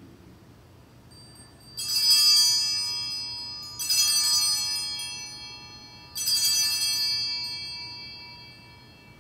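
Altar bells rung three times, each ring starting sharply and fading slowly in clear high tones, marking the elevation of the consecrated host.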